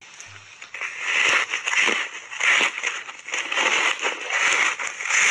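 Close-miked crunching of foamy reshaped ice coated in matcha powder, bitten off and chewed in big bites. It crackles in loud chewing crunches, about one and a half a second, starting about a second in.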